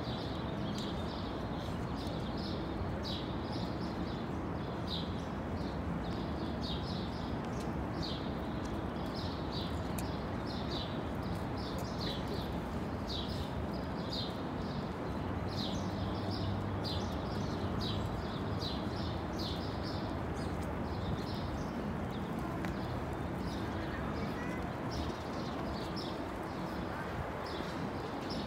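Small birds chirping over a steady city background hum, the short high chirps repeating about twice a second throughout.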